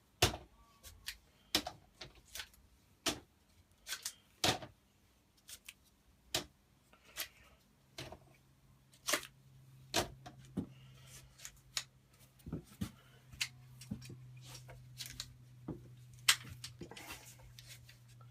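Workshop clamps being undone and taken off a glued-up knife handle: an irregular run of sharp clicks and clacks. A low steady hum comes in about eight seconds in.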